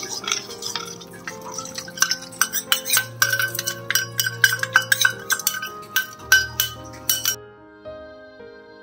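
Steel spoon scraping and tapping against a small steel bowl, a quick run of clinks that stops about seven seconds in, over soft background music.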